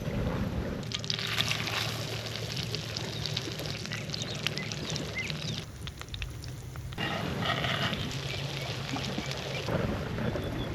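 Catfish frying in a pan, a crackling sizzle that breaks off for about a second some six seconds in and then starts again.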